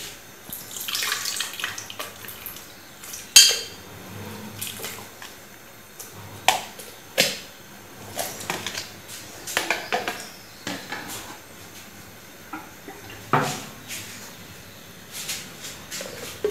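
Wet, soaked bread being tipped from a bowl into a glass blender jar, with a soft sloshing at first and then a series of sharp knocks and clinks as the bowl taps against the jar; the loudest knock comes about three seconds in.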